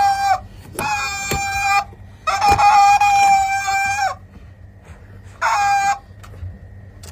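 Rubber chicken squeeze toy squawking four times, each a high squawk held at one steady pitch for between half a second and nearly two seconds, with a couple of sharp knocks in between.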